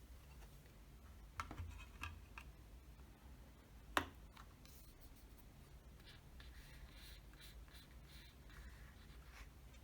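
Faint handling of a CD album's packaging: a few light clicks, a sharper single click about four seconds in, then soft rustling and scraping of card or plastic.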